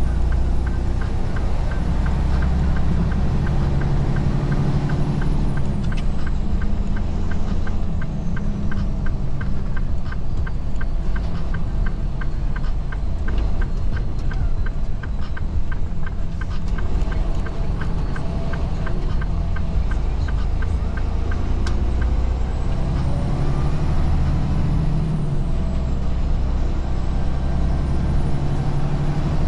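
Semi-truck diesel engine and cab noise heard from inside the cab while the truck drives slowly, the low engine note rising and falling a few times. A regular fast ticking runs through roughly the first half.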